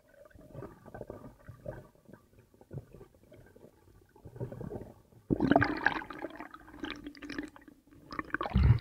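Underwater rumbling and gurgling of moving water as a freediver rises toward the surface. About five seconds in comes a sudden, louder rush of water with a steady low tone running through it, and a loud low splash near the end as the surface is reached.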